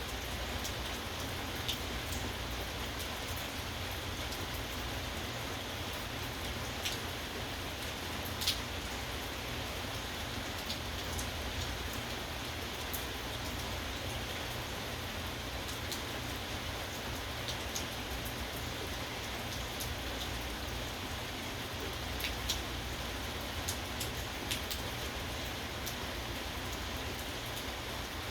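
Steady rain falling, with scattered sharp taps of drops landing close by. The loudest tap comes about eight seconds in.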